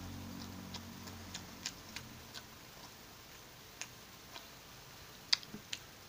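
Irregular small, sharp clicks and ticks, about a dozen scattered through the stretch, the sharpest a little past five seconds in, over a faint low hum that fades out in the first second or two.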